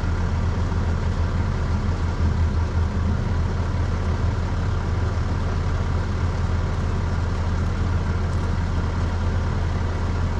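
An engine running steadily at idle, a constant low drone with no change in speed.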